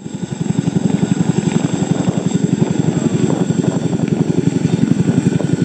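CH-47 Chinook helicopter hovering low, its tandem rotors beating in a rapid, even thudding rhythm, with turbine hiss above.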